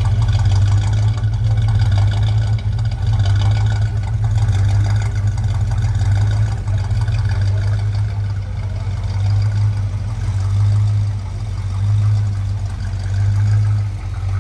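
1971 Dodge Charger R/T's 318 cubic-inch V8 idling with a deep rumble, its level rising and falling in a slow, regular rhythm.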